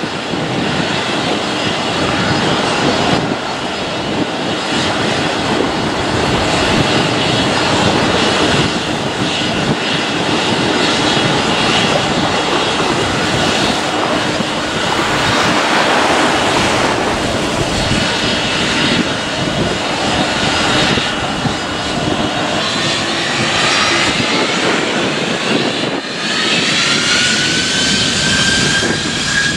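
Boeing 767-300ER's Pratt & Whitney PW4060 turbofans running low on the runway, a steady jet rumble and hiss. About three-quarters of the way in, the engines' whine rises in pitch as they spool up.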